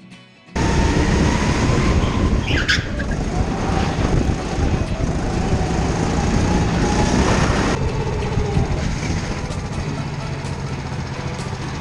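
Go-kart engine and rushing noise heard through a camera mounted on the kart as it drives on the track. The noise starts abruptly about half a second in and is loud and dense, and its hiss eases off about two-thirds of the way through.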